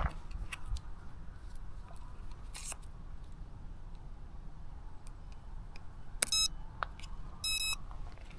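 Two short electronic beeps from the Eachine E120S RC helicopter's electronics, about a second apart, the second broken into quick pulses. They come over a low rumble of wind on the microphone and small handling clicks.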